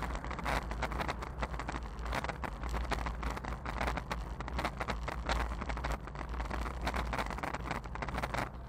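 Wind buffeting the microphone of a bicycle-mounted action camera, with irregular clicking and rattling as the camera and bike jostle over the road.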